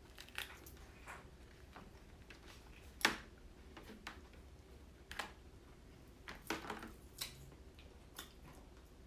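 Cooked lobster tail being picked up and handled: a few scattered, faint clicks and cracks of the shell, the sharpest about three seconds in.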